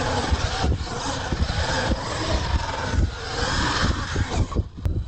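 Radio-controlled monster truck driving across dirt, its motor running and revving and its tyres working the loose ground. It eases off briefly near the end.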